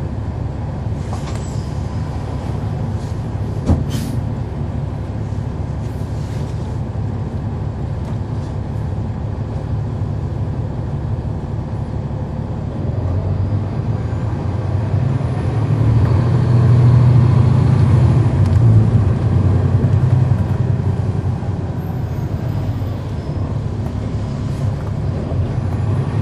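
Cummins ISL9 inline-six diesel engine of a NABI 40-SFW transit bus, heard from inside the rear of the bus as it drives, a steady low drone. The engine grows louder about halfway through, holds for several seconds, then eases off. A single sharp knock about four seconds in.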